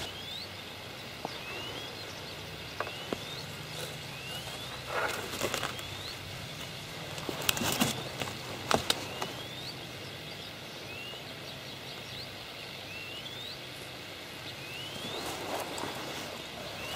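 A bird repeating a short rising whistle about every second or two over a steady outdoor background. A few sharp clicks and rustles of handling fishing tackle come and go, loudest about halfway through.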